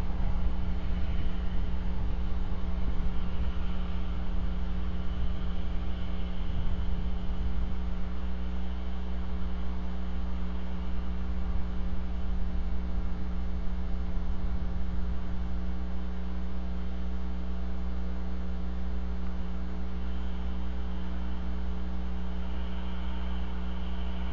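Steady electrical mains hum with a low rumble beneath it, picked up by the nest camera's microphone.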